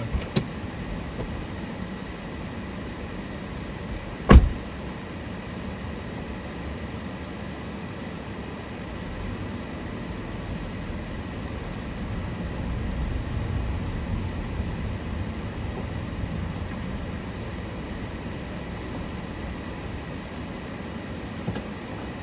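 Steady low road and engine rumble inside a moving car's cabin, with a single sharp thump about four seconds in.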